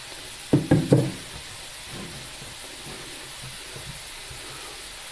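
Dough being handled and pressed on a wooden board: a quick cluster of dull knocks about a second in, then a steady faint hiss.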